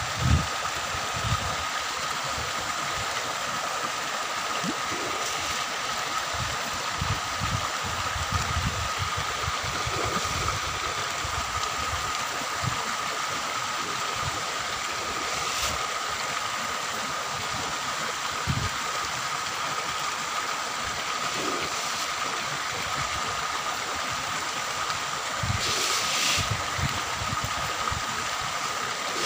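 Steady splashing and gurgling of water running into a fish pond, with wind buffeting the microphone now and then and a thin steady high tone underneath.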